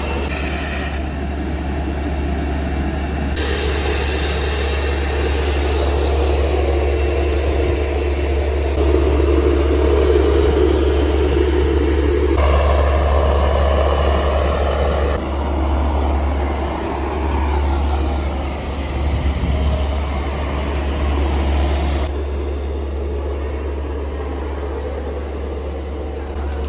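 Steady jet aircraft noise on an airport apron: a rumbling roar with a high whine from the parked Boeing 737-500's turbines. The tone and level change abruptly several times.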